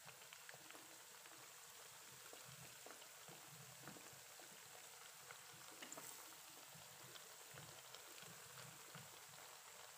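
Battered banana pieces deep-frying in hot oil in a wok: a faint, steady sizzle with scattered small crackles and pops.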